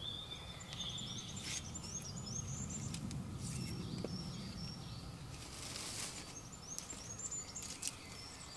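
Woodland songbirds singing, repeated short high chirping phrases, with soft rustling and a few light knocks as firewood is handled.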